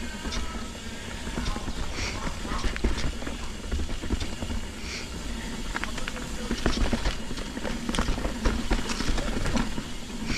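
Mountain bike rattling over a rough trail: many irregular clicks and knocks of the bike and tyres over rocks and roots, over a steady low rumble.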